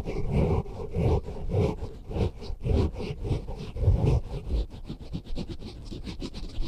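A microphone being scratched and rubbed for ASMR, in repeated strokes that each carry a low rumbling thump. About halfway through the strokes quicken into rapid short scratches.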